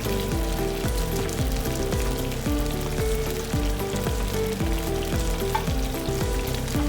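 Steady sizzling of food frying in oil, under background music with a regular beat and repeating bass notes.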